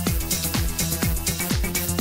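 Electronic dance music with a steady kick-drum beat, about two beats a second, and hi-hats over it.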